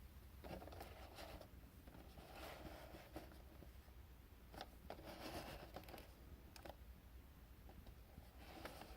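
Near silence, with faint rustling and a few light clicks as a cardboard collectible-figure box is handled and turned in the hands.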